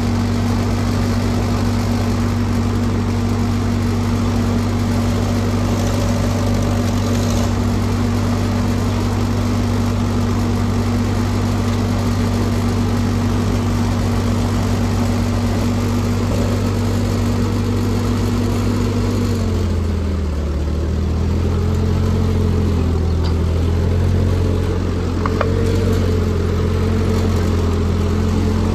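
Vintage farm tractor's engine idling steadily close by. About two-thirds of the way in its pitch dips and wavers as the tractor pulls away under load through deep snow, then steadies near the end.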